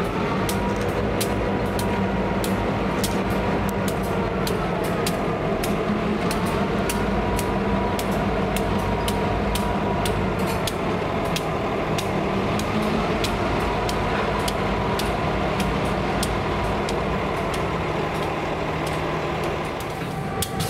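Two diesel-electric locomotives running at low speed, their engines a steady hum, with wheels clicking over rail joints about twice a second and a faint whine that dips and rises.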